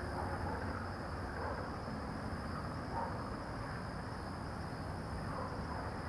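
Night chorus of insects and frogs by a Florida swamp: a steady, faint drone with a thin high insect note over a low background rumble.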